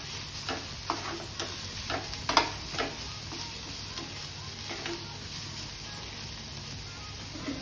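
Sliced onion and capsicum sizzling in a kadai while a slotted spatula stirs them, the spatula scraping and knocking against the pan about six times in the first three seconds and once more near the middle. The steady sizzle carries on underneath.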